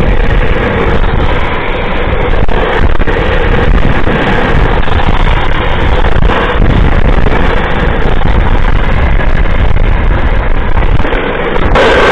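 Wind rushing over the microphone mixed with the drift trike's wheels rolling and sliding on asphalt at speed, a loud, steady rushing noise. The noise changes abruptly near the end.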